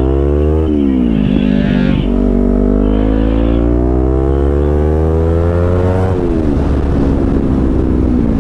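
Kawasaki Z250's parallel-twin engine accelerating hard through the gears. The revs climb, fall at an upshift about a second in, climb steadily for about five seconds, fall at another upshift about six seconds in, then hold fairly steady.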